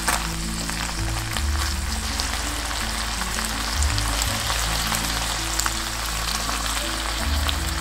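Canned saury with green chillies and green onion frying in oil in a pan: a steady sizzle with scattered sharp crackles.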